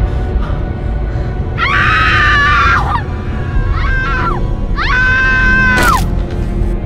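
Three high-pitched screams from young women over ominous background music; the first and last are each held for more than a second and the middle one is short. A sharp crack sounds near the end.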